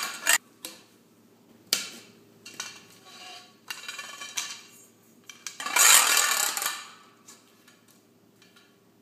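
Metal wire shelf and steel pole clinking and rattling against each other as they are handled during assembly. There are a couple of sharp knocks near the start, scattered light clinks, and a longer, louder scraping rattle about six seconds in.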